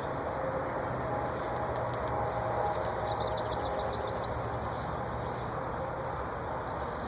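Steady vehicle-like rumble, with a quick run of high chirps about three seconds in.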